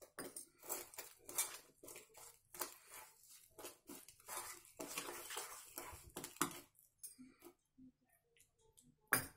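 Metal spoon stirring and scraping against a stainless steel pot, mixing gram flour and rice flour with water into a thick batter. The strokes are irregular, thin out about seven seconds in, and a single sharp clink comes near the end.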